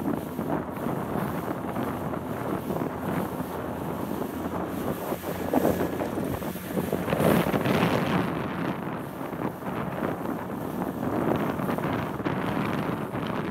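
Wind buffeting the microphone in gusts, strongest about seven to eight seconds in, over the wash of choppy water around a small open boat.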